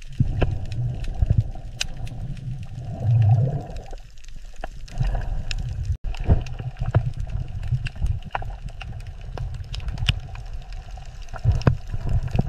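Underwater ambience: a low rumbling wash with bubbling and many scattered sharp clicks, dropping out for a moment about six seconds in.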